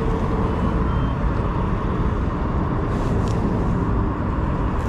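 Steady low rumble of outdoor noise, loud and unbroken, with a faint short tone about half a second in and a brief tick about three seconds in.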